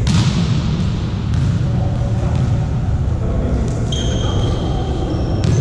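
Volleyball being hit, a few sharp smacks a second or more apart, with sneakers squeaking on a court floor near the end, over a steady din of hall noise.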